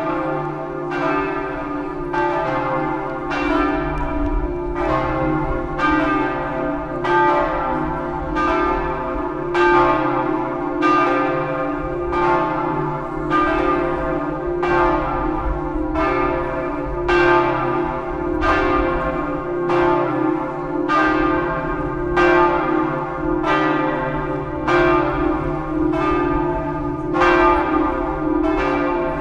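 Church tower bells ringing for midday: a bell strikes about once a second, each stroke ringing on, over the steady hum of larger bells sounding together.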